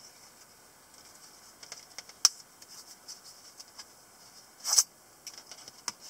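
Handling sounds of a leather knife sheath with a brass snap as a black pocket knife is taken out of it: scattered small clicks and rubs, one sharp click about two seconds in, and a brief scraping rustle near the end.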